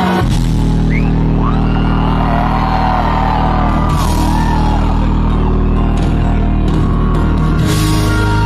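Live band playing through a large concert PA, heard from inside the crowd: a loud held low chord comes in just after the start, with crashes about four seconds in and again near the end, where the bass note changes. Crowd shouts rise over the music.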